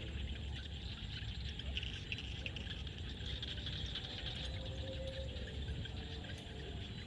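Frogs and insects calling together in a continuous dense chorus of overlapping chirps and trills, with a low rumble underneath.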